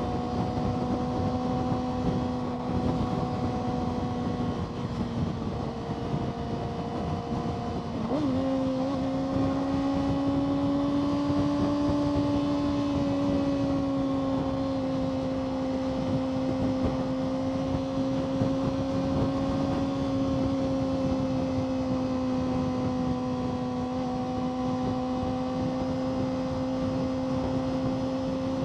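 Kawasaki ZX-6R 636's inline-four engine running steadily under way, with wind noise on the mic. About eight seconds in, the engine pitch jumps up, then holds steady again.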